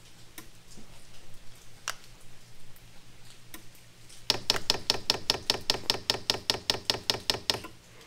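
Diesel heater fuel dosing pump ticking in a fast, even rhythm of about six clicks a second, starting about halfway in, as it primes the still-empty fuel line. A couple of single clicks come before it, over a low steady hum.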